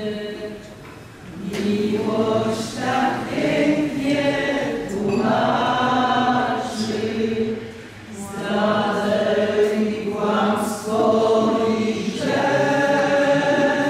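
A group of people singing a song together in four long phrases with short breaks between them.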